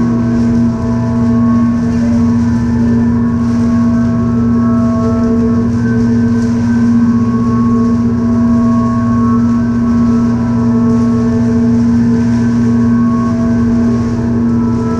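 Electric blower fan running steadily to keep a large plastic-sheet bubble inflated: a loud, even hum with a strong low tone and higher tones that fade in and out.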